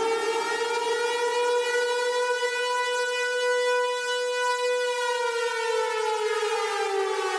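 Civil defense siren wailing. Its pitch finishes rising in the first second or so, holds steady through the middle, then falls away over the last two seconds.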